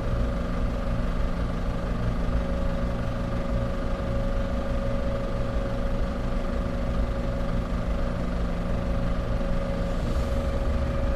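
A vehicle engine running steadily with a constant low hum.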